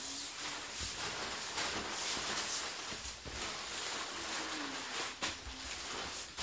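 Nylon fabric of an Ozark Trail two-person pop-up tent rustling and swishing as its spring-steel hoops are twisted and folded down, with a few sharp knocks.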